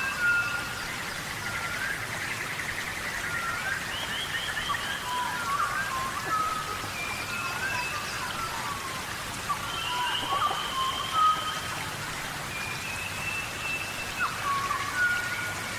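Steady tropical rainforest rain falling, with many short whistled chirps and gliding calls, most likely birds, scattered over it.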